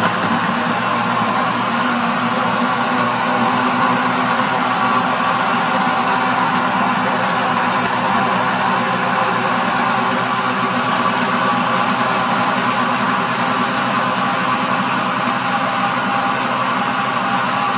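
Electric countertop blender motor running steadily, blending chopped okra with water.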